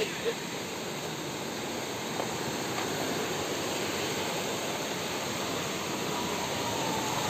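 Steady rushing noise, with a motor scooter's engine faintly coming closer in the last second or so.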